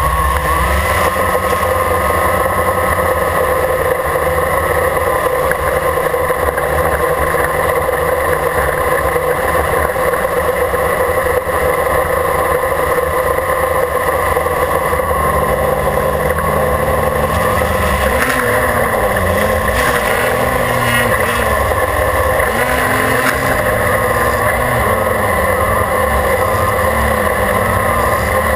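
Quadcopter's electric motors and propellers, heard from a camera mounted on the craft: a loud, steady buzz of several pitches. In the second half the pitch wavers up and down repeatedly as the motors speed up and slow down during flight.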